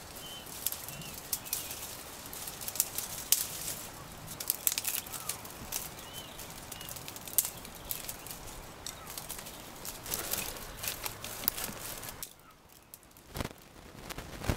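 Dry twigs snapping and branches rustling as dead twigs are broken off a shrub by hand, an irregular run of sharp cracks. Faint bird chirps in the background.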